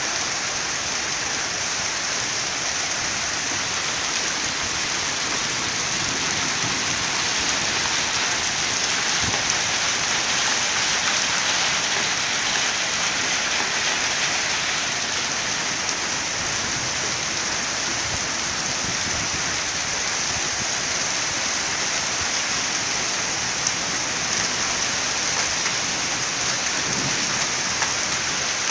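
Heavy hail falling steadily on concrete pavement and steps, a dense, even patter, with a few sharper hits standing out near the end.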